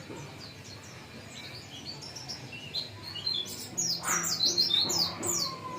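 A white-eye (pleci) singing: soft, high twittering at first, then about three and a half seconds in a louder run of quick, high, falling notes. This is the bird starting to 'nembak materi', firing off its learned song material.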